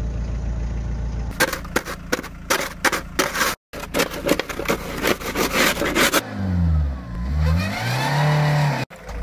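A motorhome's engine idling, then a shovel scraping and chopping repeatedly at packed snow and ice by a wheel. Near the end the engine revs up and down as the drive wheel spins on a block of ice under the tyre: the vehicle is stuck and can't get grip.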